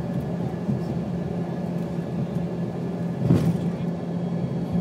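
Cabin noise of an Embraer ERJ-145 rolling on the ground after landing: a steady rumble with a low drone from its rear-mounted AE 3007 turbofans. A single sharp knock comes a little over three seconds in.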